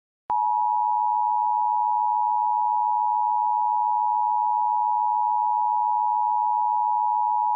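Emergency Alert System attention signal: a steady two-tone alarm just under 1 kHz (the 853 and 960 Hz pair) that starts a moment in and holds unchanged. It marks the start of an emergency alert broadcast.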